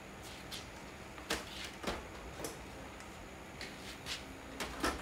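Scattered light clicks and small knocks of plastic refillable ink cartridges and their tubing being handled.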